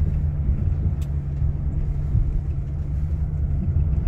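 Delivery van driving along, its engine and road noise making a steady low drone. There is a faint click about a second in.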